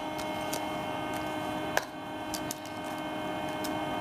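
A steady electrical hum with a few light clicks scattered through it, and one sharper click about two seconds in.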